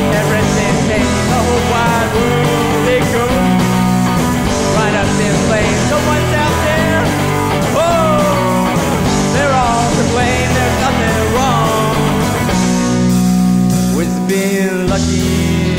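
Rock band playing an instrumental passage: electric guitars, bass and drums, with a lead line of bending, sliding notes over the top. Near the end the bass drops out briefly, then comes back in.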